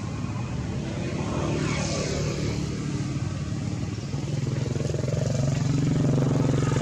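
An engine running steadily with a low hum that grows louder about four seconds in.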